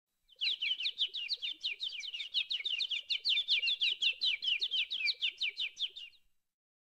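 Small birds chirping in a rapid run of short, high, down-sweeping notes, about five a second, stopping about six seconds in.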